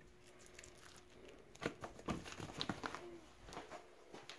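Faint scattered taps and rustles of raw, sauced chicken wings being tipped from a foam meat tray onto an air fryer's wire rack.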